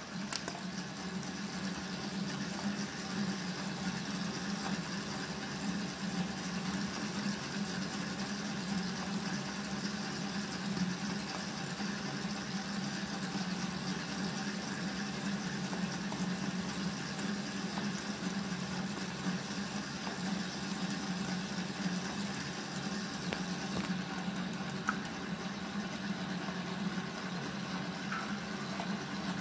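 IM 10S spiral dough mixer running with a steady hum, its spiral hook kneading pizza dough in the stainless steel bowl during the final kneading after the salt is added.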